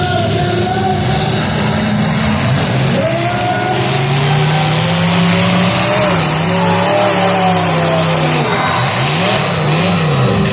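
Demolition derby cars' engines revving, their pitch rising and falling again and again over a steady din of engine and tyre noise, with two quick rev swells near the end.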